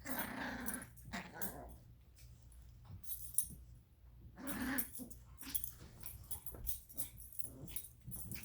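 Dogs at play, growling in two loud bursts, one at the start and one about halfway through, with light clicks and jingles in between.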